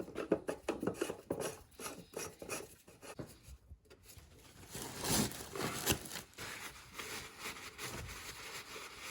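Oil filter housing cap being screwed on and seated by hand: a run of short rubbing and scraping sounds with small clicks.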